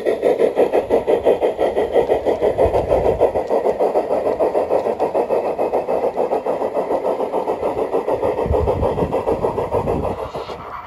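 Sound unit of a large-scale Bachmann narrow-gauge model steam locomotive chuffing quickly and evenly, about five chuffs a second, as the engine runs along the garden track. The chuffing fades near the end.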